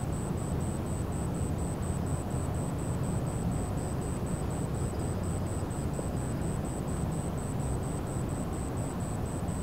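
Steady low rumble with no sudden events, and a thin high-pitched pulse repeating evenly about four times a second.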